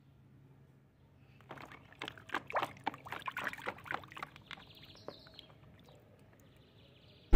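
Water splashing and sloshing in a plastic tub as a plastic toy dinosaur is swished about by hand to wash the mud off. The splashes start about a second and a half in, come in an irregular run, and die away near the end.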